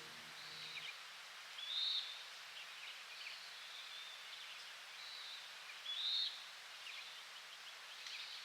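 Faint wild bird calls: a short, high, arched note repeated about every two seconds over a light outdoor hiss.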